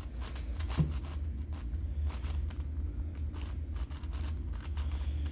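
Yuxin 7x7 speed cube being turned by hand: a quick, irregular run of plastic clicks and clacks as its layers move. The cube is new, not yet broken in, and still turns a bit locky.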